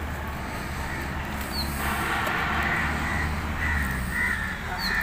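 Crows cawing, with a few calls in the second half, over a steady low rumble.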